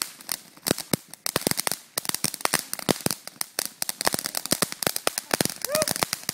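A string of firecrackers going off in rapid, irregular pops, with a brief lull about a second in before the popping picks up again.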